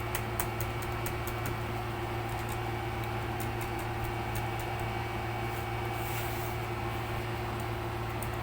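Laptop keyboard keys being pressed one after another in light, irregular clicks while the keyboard is tested, over a steady low electrical hum.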